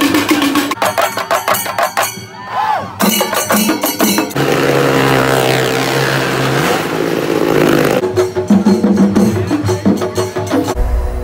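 Quick-cut festival audio: loud rhythmic drumming, broken in the middle by a few seconds of steady engine drone from a car and motorbike riding the wall of a well-of-death. The drumming comes back, then gives way to a deep rumble near the end.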